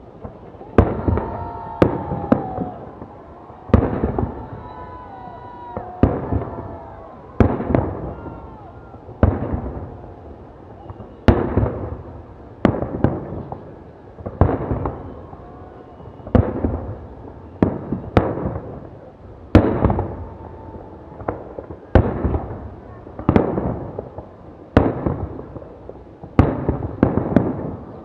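Fireworks display: aerial shells bursting one after another, a sharp bang about every second or two, each trailing off in an echoing rumble.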